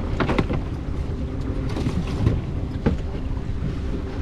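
Fishing boat's engine running steadily at low revs, with wind buffeting the microphone and a few sharp knocks on deck.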